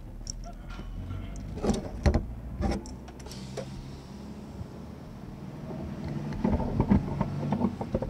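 A vehicle engine running steadily while driving alongside a camel race track, with several sharp knocks around two seconds in and a burst of clatter near the end.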